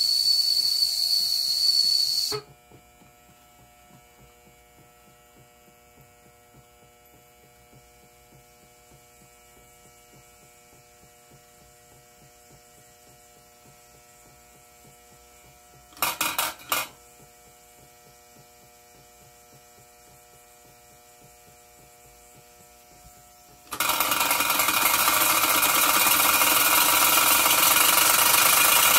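Wilesco D6 model steam engine's boiler whistle blowing, one steady high note over a hiss of steam, cut off about two seconds in. Then a long quiet stretch with only a faint steady hum, broken midway by a quick cluster of four short bursts. About five seconds before the end, loud steam hissing with a mechanical rattle starts as the engine runs.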